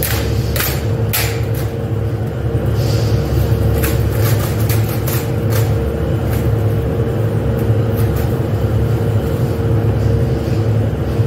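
Steady low machinery drone of a factory hall with a constant hum. Scattered light clicks and clacks of long metal strips being hung on rack hooks run over it.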